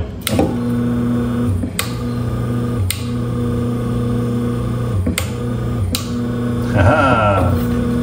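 Aloha Breeze fan's electric motor running with a steady hum, with sharp clicks of the speed-switch buttons being pressed about five times; the hum shifts with the clicks. The motor running on the newly rewired switch shows the wiring works.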